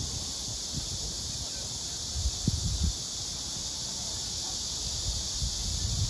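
Steady high buzzing chorus of cicadas in the surrounding trees, holding one even pitch without pauses. Low rumbling bumps on the microphone come and go, strongest between about two and three seconds in.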